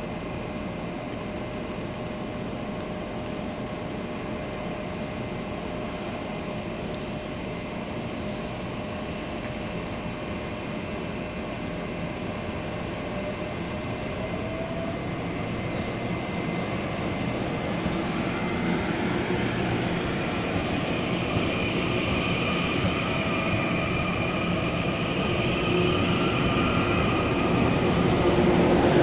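TEMU2000 Puyuma tilting electric multiple unit pulling away from a station. A steady electrical hum gives way, from about halfway, to a slowly rising motor whine and growing running noise as the train picks up speed.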